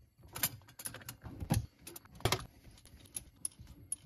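Metal clicks and clinks of channel-lock pliers and a chrome threaded fitting as a dishwasher's Aqua-Stop supply hose is loosened and unscrewed from the angle valve: a string of separate sharp clicks, the loudest two about halfway through.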